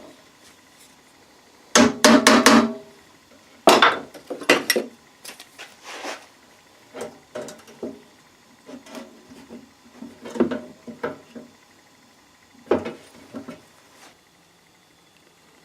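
Knocks and clanks of tools and parts being handled and tapped, in uneven clusters, some strikes ringing briefly. The loudest run of knocks comes about two seconds in, another about four seconds in, then lighter taps follow.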